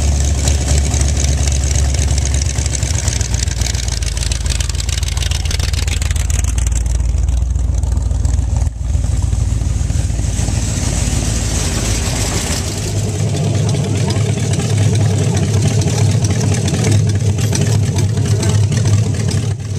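Car engine running steadily, its note shifting about thirteen seconds in.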